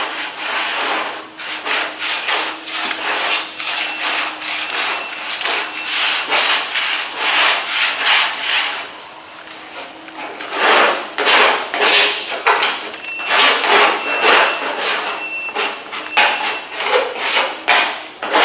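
Hand scraper blade scraping chemically softened paint and primer off a metal car panel in repeated strokes, with a brief pause about halfway.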